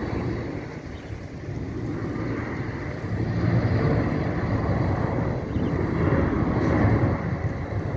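Boeing 777-300ER's GE90 turbofan engines at approach power on final approach with the landing gear down: a low jet rumble that grows louder about three seconds in.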